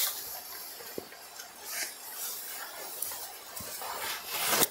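Soft rustling and swishing of a Banarasi khadi saree's fabric as it is unfolded and spread out by hand, with a couple of brief louder swishes.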